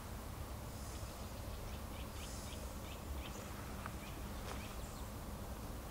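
Quiet outdoor ambience: faint bird chirps, a quick run of short calls about a second and a half in, over a low steady rumble.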